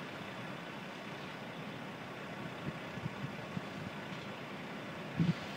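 Steady low rumble of a heavy truck idling, with a few soft knocks and a louder double thump about five seconds in.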